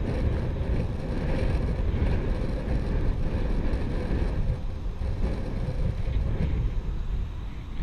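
Wind blowing over the microphone as a steady low rumble, with the wash of choppy sea water beneath it.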